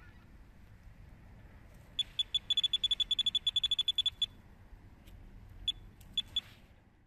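Electronic bite alarm on a pike rod sounding a run: a rapid string of high beeps, about nine a second, for a couple of seconds, then a few single beeps. This is the sign of line being pulled out by a fish taking the deadbait.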